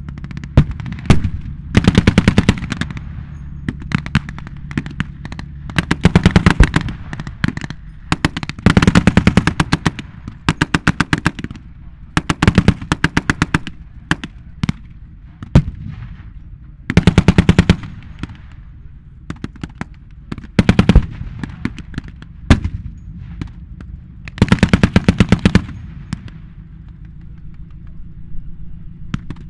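Machine guns firing blanks in repeated bursts of rapid automatic fire, some short and some over a second long, over a steady low rumble.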